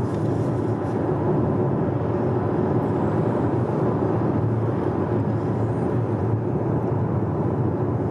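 Steady road and engine noise of a moving car, heard from inside its cabin: tyre rumble and engine hum, even throughout.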